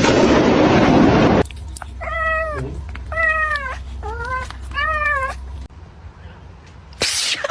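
A cat meowing four times, about a second apart, each meow rising and then falling in pitch. The meows follow a loud rushing noise in the first second and a half, which is the loudest sound here.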